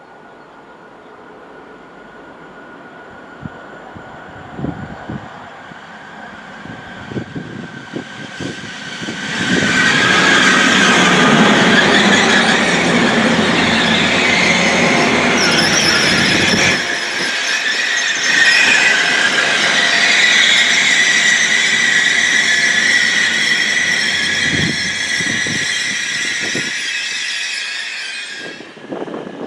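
A train running through the station close by. It grows louder over the first several seconds, then stays loud for nearly twenty seconds with a high-pitched metallic squeal from the wheels on the rails. The deep rumble drops away partway through, and the sound stops abruptly near the end.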